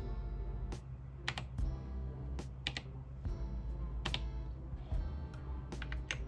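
Typing on an Epomaker TH80 mechanical keyboard with Flamingo linear switches: irregular keystroke clicks, a few a second, over background music.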